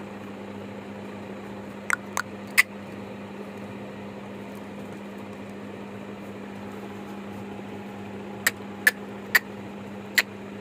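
A steady low hum over even room noise, broken by short sharp clicks or taps: three about two seconds in and four more near the end.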